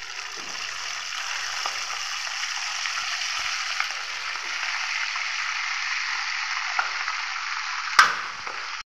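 Semolina sev dough pressed from a stainless-steel sev maker into hot oil, frying with a steady sizzle that builds over the first couple of seconds. A sharp click comes about eight seconds in, and the sound cuts off abruptly just before the end.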